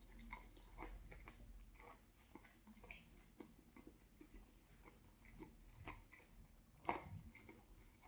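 Quiet, close-miked chewing of a chicken, cheese and vegetable sub sandwich, with soft wet mouth clicks throughout and one louder click about seven seconds in.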